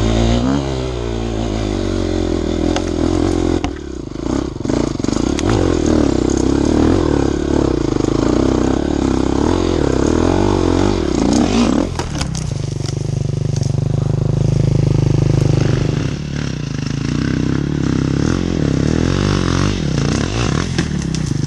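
KTM enduro motorcycle engine pulling under load up a steep, rough dirt trail, its revs rising and falling with the throttle. Short knocks and rattles come from the bike over the ground, and about twelve seconds in the engine settles to a lower note.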